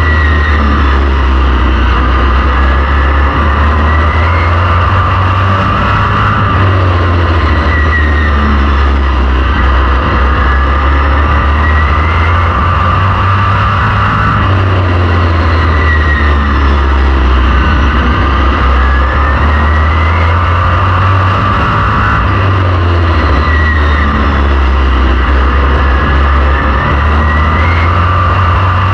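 Vintage modified race car's V8 engine at racing speed, heard from on board. A loud steady drone whose pitch rises as it accelerates down each straight and falls off into each turn, about every eight seconds.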